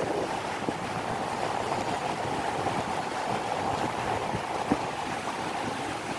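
Steady rush of water flowing through a tidal sluice gate, with a few light knocks.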